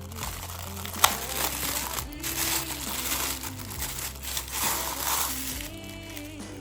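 Packaging crinkling and rustling as items are unpacked from a box, with one sharp click about a second in. Background pop music with a bass line and singing plays throughout.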